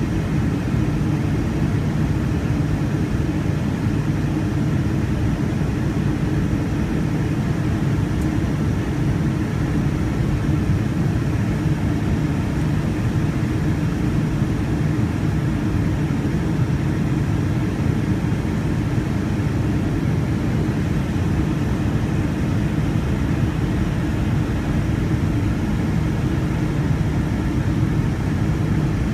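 Boeing 757-200 cabin noise heard from a window seat beside the wing: the turbofan engines and airflow over the fuselage make a steady, unchanging deep rumble, with faint steady tones above it, as the airliner descends.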